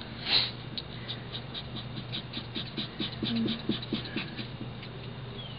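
Felt-tip marker being stroked quickly back and forth over card, a run of short scratchy strokes several times a second, while an image is coloured in. A short, louder swish of noise comes about a third of a second in, over a steady low hum.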